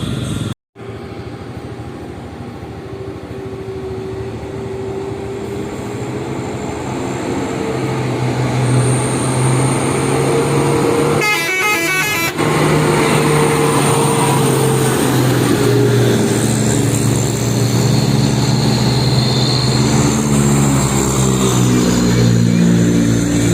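Heavy trucks' engines running under load on a climb while their telolet horns sound, multi-tone horns playing stepping melodic notes that grow stronger in the last several seconds. The sound cuts out for a moment under a second in.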